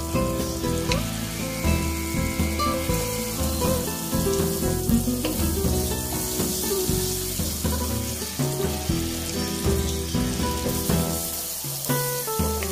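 Butter sizzling and frying in a hot nonstick wok, with background music. Near the end, diced onion goes into the hot butter.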